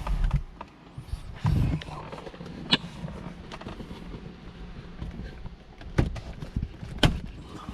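Plastic center-console side trim panel being pulled off its retaining clips: a couple of dull knocks, then three sharp clicks spread over several seconds as the clips pop loose.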